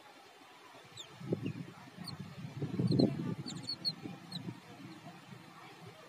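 Yellow-billed babblers giving short, thin, high squeaky calls, scattered through the middle of the clip. Under them are louder low, muffled thumps and rustling, strongest about three seconds in.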